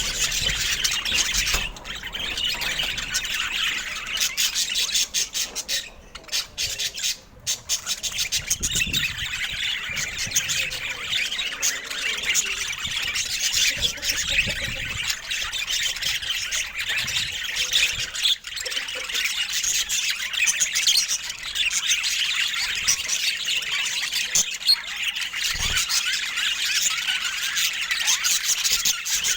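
Budgerigars chattering, with a dense, unbroken stream of chirps and squawks.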